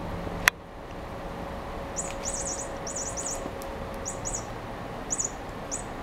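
A cat's toy mouse on a string chirping like a bird: groups of short, very high chirps from about two seconds in, after one sharp click near the start.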